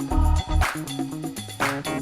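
Background music: a funk-style track with a steady beat of kick drum and cymbal hits over bass and guitar.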